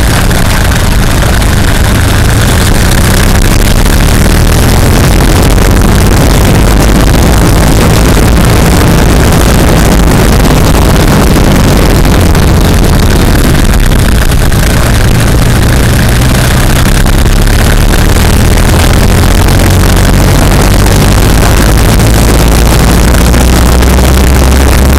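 Road and tyre noise picked up by a camera under a moving vehicle beside its front wheel: a loud, steady rush with a low engine and drivetrain drone beneath it, near the top of the recording level throughout.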